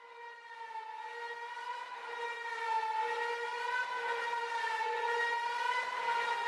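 Siren-like wailing tone held at a nearly steady pitch with a slight waver, fading in and growing steadily louder.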